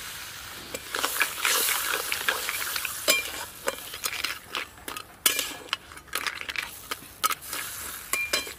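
A flat metal spatula stirring crab curry in a metal wok, scraping and clicking against the pan many times. Under it, the hot masala sizzles where water has just been added, loudest in the first few seconds and then dying down.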